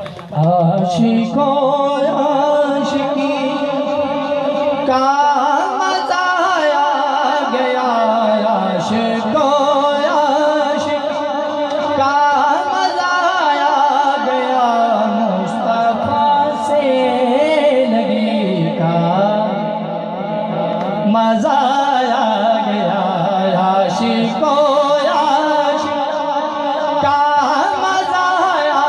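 A man singing a naat, a devotional Urdu/Punjabi poem in praise of the Prophet, unaccompanied into a hand-held microphone, with long drawn-out, wavering melismatic notes.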